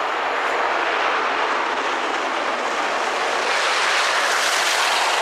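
Steam-hauled passenger train approaching at speed behind LNER A1 locomotive 60163 Tornado: a steady rushing noise of locomotive and wheels on rail that grows louder in the last couple of seconds.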